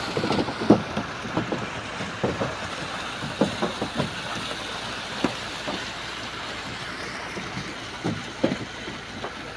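Water rushing and splashing down a tarpaulin chute as a fish net is emptied, gradually easing, with irregular wet slaps and thumps.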